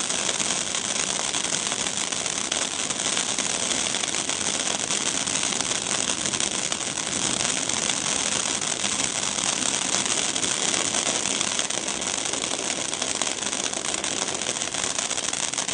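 A 500 g firework fountain spraying, its crackling stars giving a dense, continuous crackle that holds steady throughout.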